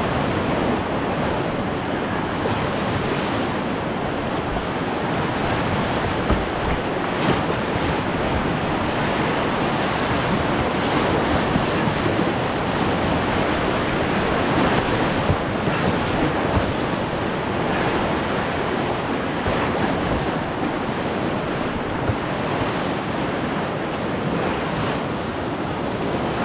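Whitewater of the Colorado River's Sockdolager Rapid, at about 20,000 cfs, rushing and breaking around a solo canoe running through its waves: a steady loud wash of water noise with a few louder splashes.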